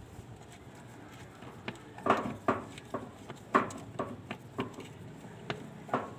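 A series of about nine short, sharp knocks, irregularly spaced, starting about two seconds in.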